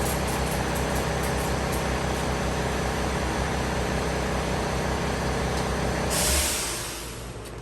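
A machine running with a steady hum, then a short, loud hiss about six seconds in, after which the hum drops away.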